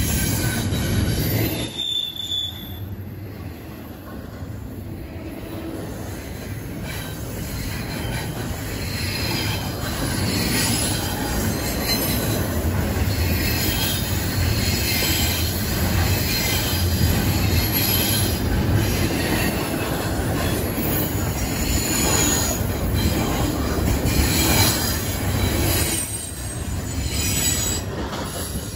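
Double-stack intermodal container cars of a freight train rolling past close by: a steady rumble of steel wheels on rail, with high-pitched wheel squeal. The sound drops away near the end as the last car passes.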